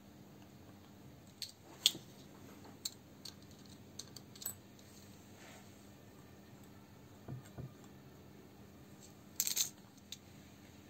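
Faint, scattered small clicks and taps of metal being handled on a workbench as a brake master cylinder held in a vice is worked on, with two dull knocks about seven seconds in and a brief scraping rustle near the end.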